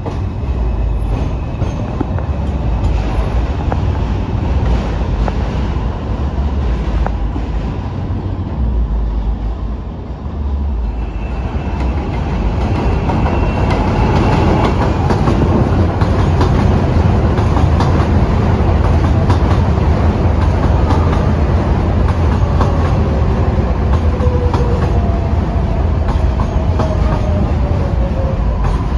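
New York City subway train, an R142-family car on the (4) line, running through the station with wheels clattering on the rails. It grows louder about a third of the way in, and in the second half a thin whine slides slowly down in pitch.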